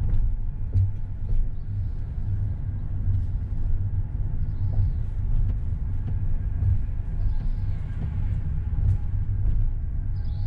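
Low, steady rumble of a car driving slowly, heard from inside the cabin: engine and tyre noise.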